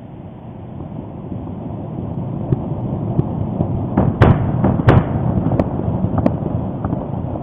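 Volcanic eruption: a deep rumble that grows louder, broken by sharp explosive cracks, two loud ones about four and five seconds in and smaller ones after.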